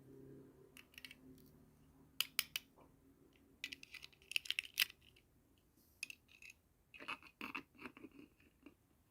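Small plastic toy pieces and packaging handled: a string of sharp clicks and scratchy taps, in bunches about two seconds in, from about three and a half to five seconds, and again around seven to eight seconds.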